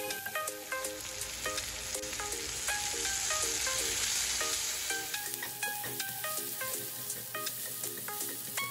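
Shredded cabbage and green chillies sizzling in a nonstick frying pan while being stirred with a wooden spatula, with light clicks of the spatula; the sizzle swells for a few seconds from about a second in. Background music with plucked notes plays throughout.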